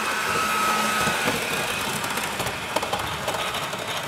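Bachmann Windhoff MPV OO-gauge model train running past at full speed: a thin motor whine that stops about a second in, followed by scattered light clicks over a steady hiss.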